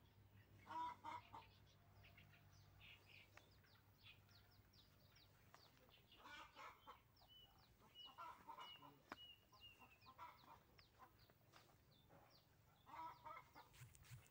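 Chickens clucking faintly in several short bouts, with quick high bird chirps scattered throughout.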